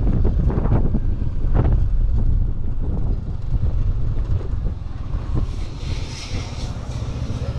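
Motorcycle running along at riding speed, its low engine rumble mixed with wind buffeting the microphone. A brighter hiss comes in about six seconds in.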